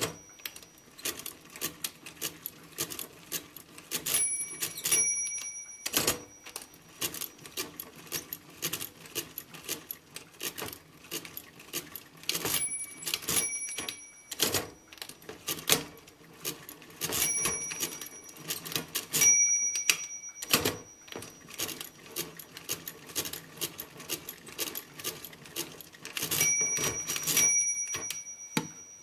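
Facit C1-13 hand-cranked pinwheel mechanical calculator working through a long division: the crank turns and keys give steady clicking and rattling. Every few seconds a group of two or three sharp metallic strikes rings on briefly.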